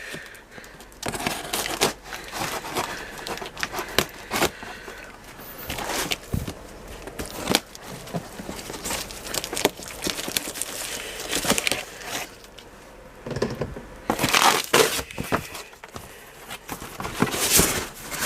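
Cardboard and plastic packaging being handled and pulled off a plastic tool box: irregular crinkling, rustling and tearing, with scattered knocks, busiest near the end.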